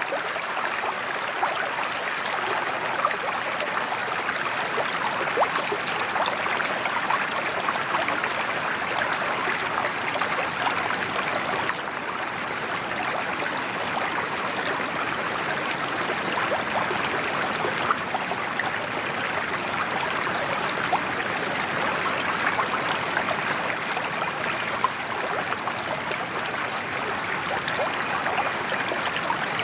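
Steady splashing of a sheet of water pouring from a spillway into a koi pond.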